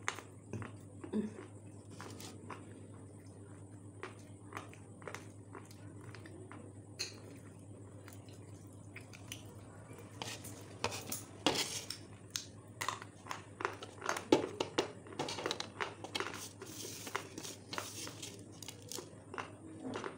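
Close-up chewing and crunching of crispy fried chicken lollipops, mixed with clicks against a plate. The crunching is sparse at first and turns dense and louder about halfway through, over a steady background hum.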